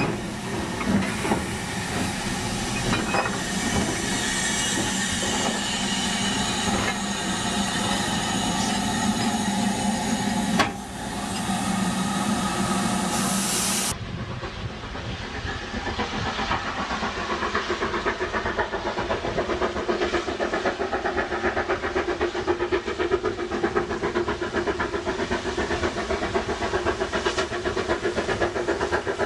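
LMS Black Five steam locomotive 45110 standing with a steady hiss of steam. After a cut about halfway, a Black Five steam locomotive is heard working towards the listener, its regular exhaust beats growing louder.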